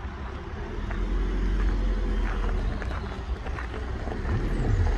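Footsteps crunching lightly on gravel over a low, steady rumble that grows a little louder about a second in.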